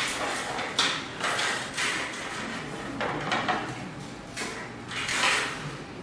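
Parts of a toy birdcage being handled and fitted together: a run of irregular scraping rattles and clicks, loudest right at the start and again about five seconds in.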